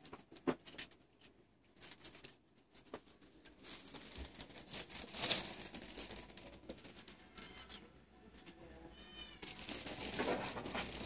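Rustling and brushing of clothing against the handheld camera's microphone, with scattered clicks, loudest about five seconds in and again near the end. About nine seconds in a cat gives a short meow.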